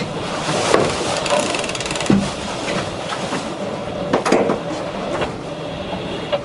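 Sailing yacht winch being ground, its pawls clicking in a fast, even ratcheting run about a second in, among a few sharp knocks over a steady rush of wind and water.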